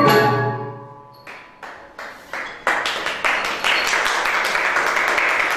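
A Thai classical ensemble of ranat xylophones and gong circles ends its piece, the last struck notes ringing away over about a second. A few hand claps follow and quickly build into steady applause.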